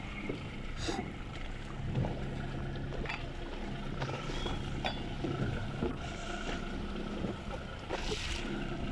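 Boat engine droning steadily at sea, with water splashing against the hull and wind on the microphone; now and then a short knock.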